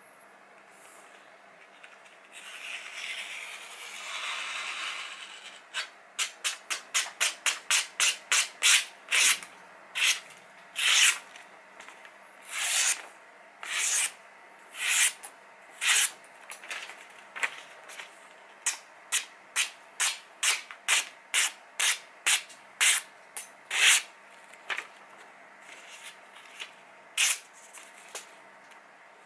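A sharpened chef's knife slicing through a printed catalogue page in a paper-cutting sharpness test: a long run of short hissing cuts, quick at first at about three a second, then slower, roughly one a second. A few seconds in, before the cutting starts, the paper rustles as it is handled.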